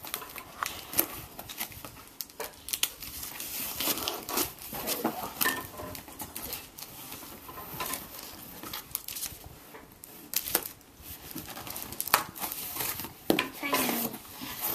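Paper package wrapping being torn and crumpled by hand, a dense run of rips, crinkles and rustles, with the cardboard box being pulled open near the end.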